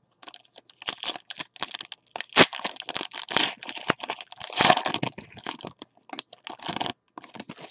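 Foil wrapper of a 2018 Panini Certified football card pack being torn open and crinkled by hand: irregular crackling rustles, with one sharp crack about two and a half seconds in.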